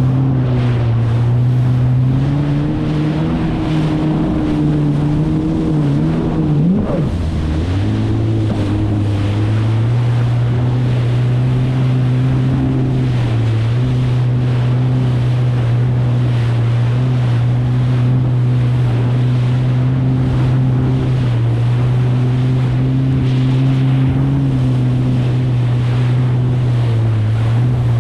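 Kawasaki STX 160 jet ski's four-cylinder engine running at a steady cruising pitch under water and wind rush while riding through chop. About seven seconds in, the engine pitch briefly rises and then dips before settling back.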